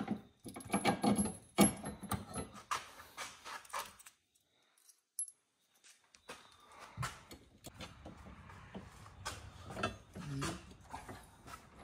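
Metallic clinks, small knocks and rattles of hardware as a new heim-joint (pillow-ball) anti-roll-bar end link is fitted and tightened under a car, stopping for a moment about four seconds in, then a low steady hum with scattered clicks.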